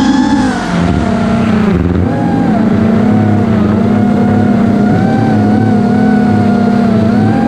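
An iFlight DC5 FPV quadcopter's brushless motors and propellers whining in flight, the pitch rising and falling with the throttle and dropping briefly about two seconds in.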